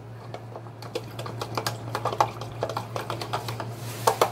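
A utensil clicking and scraping against a plastic food container while a flour mixture for gravy is stirred, a quick irregular run of light clicks. Just after four seconds there is a louder clatter as the plastic lid is handled.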